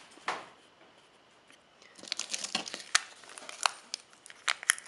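Close handling noise from a carburetor diaphragm being picked up off a workbench. A single tap comes just after the start, then from about halfway through a quick run of sharp clicks and crinkles.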